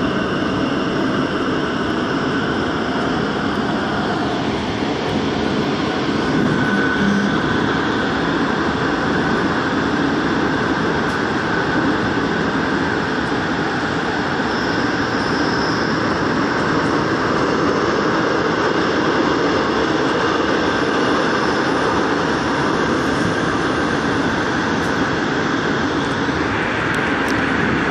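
Daegu Metro Line 2 subway train running at speed through a tunnel, heard from on board: a steady, loud rumble and rush of wheels on rail, with a few faint steady high tones above it.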